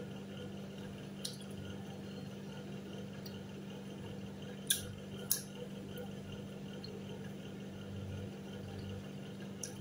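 Quiet eating sounds of pizza being torn and chewed: four small sharp clicks, about a second in, twice around the middle and once near the end, over a steady low hum.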